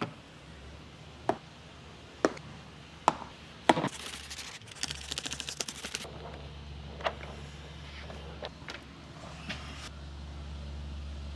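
Scattered sharp taps and clicks from window-tint installation work, with a quick run of rapid ticks about five seconds in, over a low steady hum.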